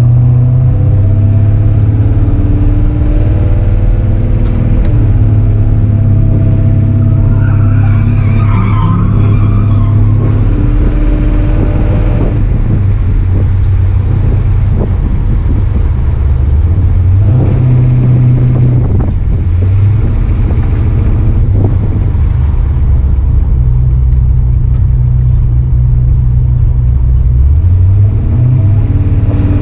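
Turbocharged V8 engine of a Dodge pickup running under way, its note stepping up and down several times as it accelerates and eases off, with a brief higher-pitched squeal about eight seconds in.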